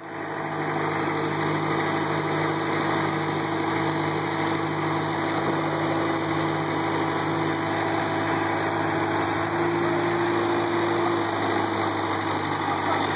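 Bobcat 331 mini excavator's diesel engine running steadily at an even speed while the boom and bucket are worked, with a steady engine tone throughout.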